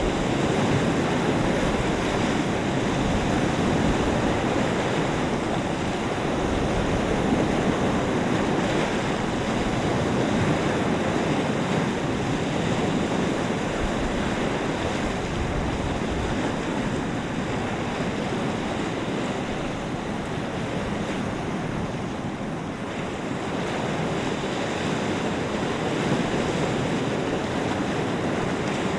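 Lake water washing in the wind: a continuous rushing of small waves with gusts of wind, easing a little about three-quarters of the way through, and wind buffeting the microphone.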